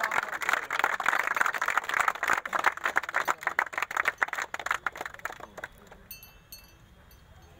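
A group of people clapping, a dense patter of many hands that dies away about five and a half seconds in.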